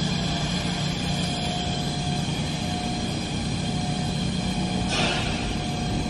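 Industrial machinery running with a steady low hum, and a short burst of hissing noise about five seconds in.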